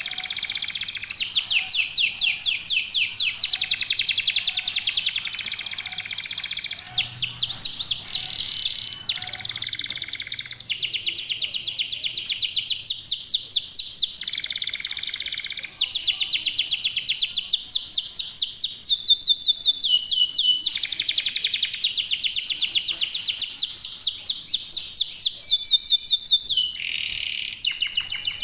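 Domestic canary song: long, fast trills, one rapid phrase after another, each changing pitch every few seconds.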